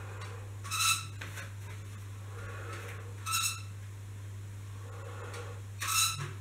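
Bullworker spring exerciser squeaking with each compression: three short, high squeaks about two and a half seconds apart, with fainter rustling between them, over a steady low hum.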